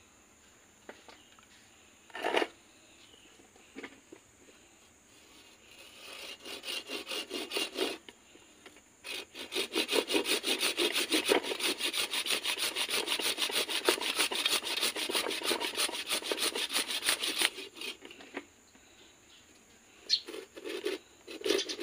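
A curved hand pruning saw cutting through an anting putri (Wrightia religiosa) stem in rapid back-and-forth strokes. There is a short burst about six seconds in, then steady sawing for about eight seconds that stops, with a single knock about two seconds in.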